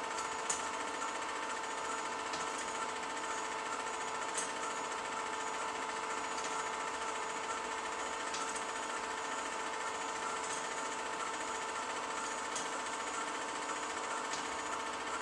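Home-movie film projector running: a steady mechanical whirr and clatter with a constant hum, broken by a few sharp ticks.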